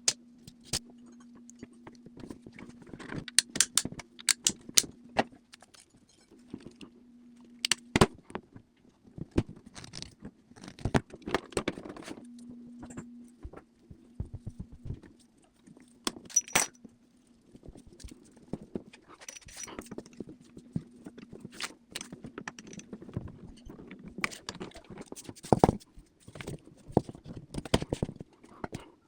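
Metal tools and plumbing parts clinking, clicking and scraping at irregular moments during hands-on plumbing work, over a steady low hum that cuts in and out.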